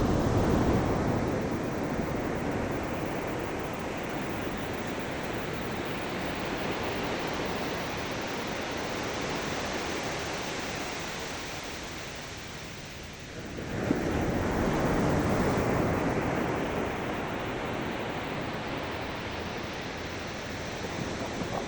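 Ocean waves breaking and washing up the shore: one wave surges at the start and slowly washes out, then another breaks about two-thirds of the way through and fades.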